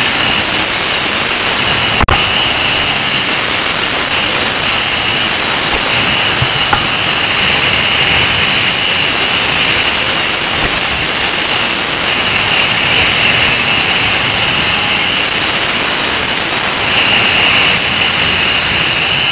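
Dirt bike riding at speed, heard from a helmet-mounted camera: engine noise blended with strong wind rush over the microphone. A single sharp knock about two seconds in.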